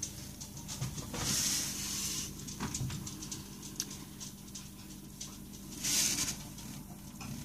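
Handmade bath bomb fizzing in bath water: a crackling hiss scattered with tiny pops, swelling louder twice, about a second in and again around six seconds.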